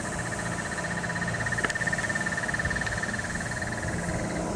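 A calling animal's rapid, evenly pulsing high trill, with one sharp click about one and a half seconds in.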